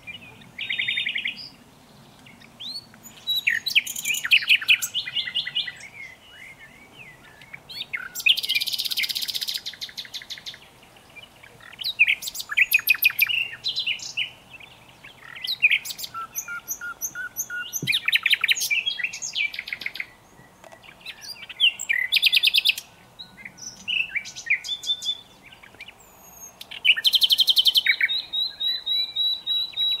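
Common nightingale singing: a series of varied phrases a second or two long, with short pauses between, made of fast runs of repeated notes, a rapid trill and a few held whistled tones.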